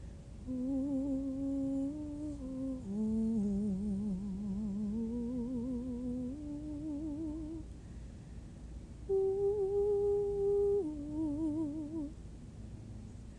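A woman humming slow, wordless held notes with a wavering vibrato, the pitch stepping up and down between notes, with a higher sustained note about nine seconds in. It is an improvised, unrehearsed vocal sound.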